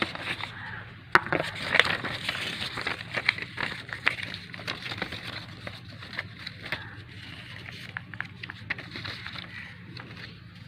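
Hands handling the smart watch and its packaging: scattered clicks, taps and rustling, busiest about a second or two in, over a steady low hum.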